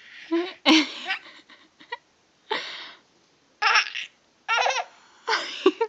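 Baby laughing in a string of short high-pitched bursts mixed with breathy laughs.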